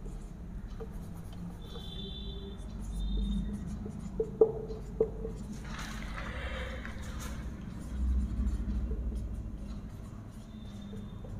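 Felt-tip marker writing on a whiteboard: short high squeaks as letters are drawn, a scratchy stroke about six to seven seconds in, and a few light taps of the marker tip around four to five seconds in, over a low steady room hum.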